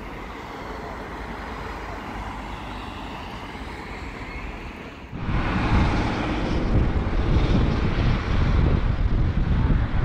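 Steady rushing outdoor noise, then about five seconds in a sudden change to louder, gusty wind buffeting the microphone with a low rumble.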